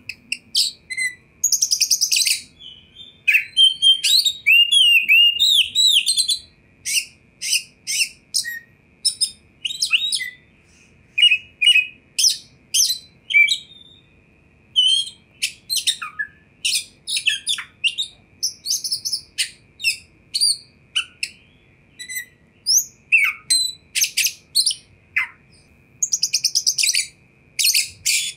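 Oriental magpie-robin singing: a rapid, varied string of slurred whistles, sharp chirps and buzzy rattling trills, with a brief pause about halfway through.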